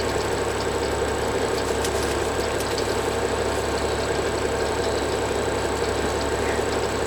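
Fishing boat's engine idling, a low, even drone, with faint ticks now and then.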